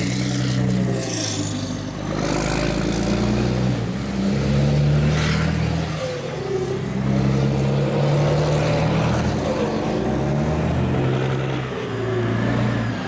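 Open-piped (straight-exhaust) DAF XF 105 trucks' diesel engines running, the engine note rising and falling as they drive off and approach. A short hiss comes about five seconds in.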